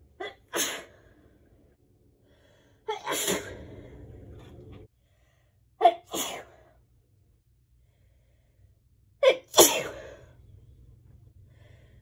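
A person sneezing four times, a few seconds apart, each a quick catch of breath followed by the sneeze itself; allergy sneezes.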